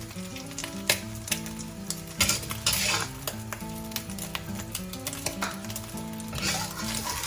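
Eggs sizzling in hot oil in a wok, with a spatula scraping and clicking against the metal as they are stirred and lifted out. A background music melody plays underneath.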